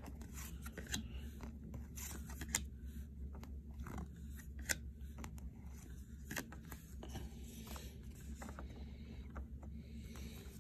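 A stack of Pinnacle baseball cards being flipped through by hand: faint, irregular soft clicks and scrapes as each card slides off the front of the stack and onto the back, over a steady low hum.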